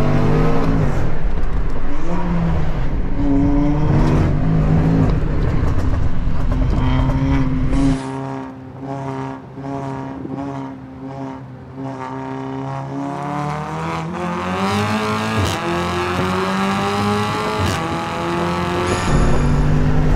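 Performance car engines pulling hard under acceleration, heard from inside the cabin. A loud, deep engine note, fitting the Range Rover SVR's supercharged V8, drops about eight seconds in to a quieter, higher note, fitting the tuned Golf R's turbo four-cylinder, which rises steadily as the car accelerates. The deep note returns near the end.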